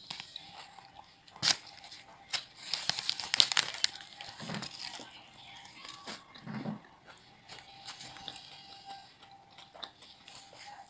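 A person biting into and chewing a doner kebab in flatbread, with a few sharp clicks and then a loud burst of crisp crunching and crinkling about three seconds in.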